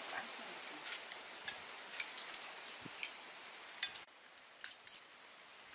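Forks and spoons clicking lightly against plates and bowls during a meal, scattered single ticks over a steady hiss. The hiss drops away suddenly about four seconds in.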